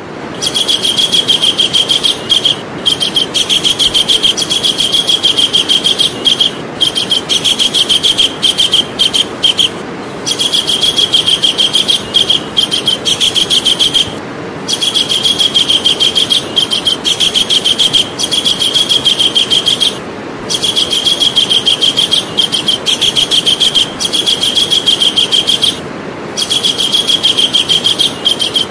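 Javan kingfisher calling in long, rapid trills of evenly repeated high notes, broken by short pauses every few seconds, over a steady background hiss.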